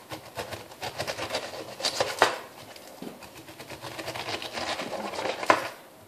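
Large kitchen knife sawing down through the tough rind of a ripe pineapple, a quick crunching rasp in two strokes, each ending in a knock as the blade reaches the board.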